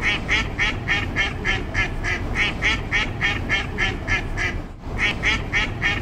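A rapid, evenly spaced run of quacking calls, about three or four a second, with a short break about five seconds in.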